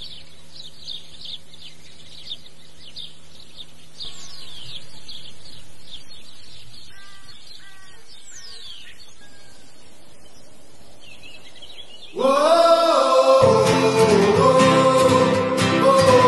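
Small birds chirping and tweeting in quick, high, falling notes over a faint steady hum. About twelve seconds in, music starts and takes over.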